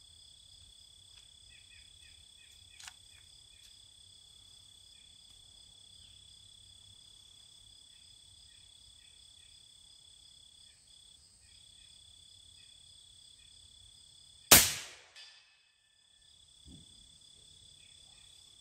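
A big-bore AEA PCP air rifle fires a single shot about three-quarters of the way in: one sharp, loud crack with a short tail. Steady high insect buzzing and chirping crickets sound throughout.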